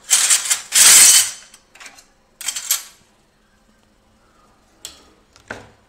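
Stainless steel kitchen utensils clattering against each other and the metal wire drawer basket as they are handled: two loud rattles in the first second or so, a few smaller clinks a couple of seconds in, and a short click and rattle near the end.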